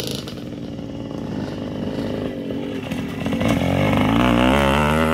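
Dirt bike engine running, growing louder about three and a half seconds in as the bike comes past close by, its pitch rising and falling as the throttle is worked.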